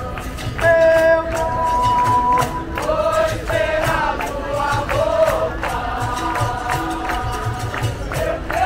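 Live music: a group of voices singing a chant-like song together over steady hand percussion.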